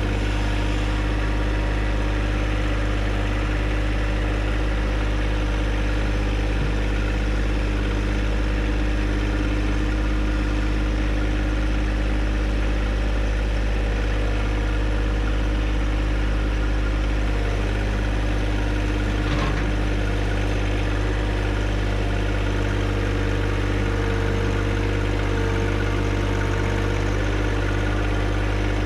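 John Deere 1025R compact tractor's three-cylinder diesel engine running steadily at a constant speed.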